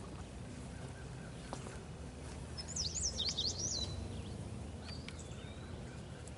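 A songbird sings one short, rapid phrase of high chirps about three seconds in, with a fainter call a couple of seconds later, over steady low outdoor background noise.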